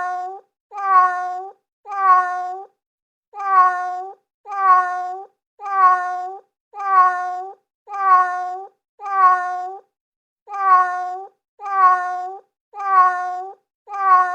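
Domestic cat meowing: the same meow repeated over and over, about once a second, with a slightly longer pause twice.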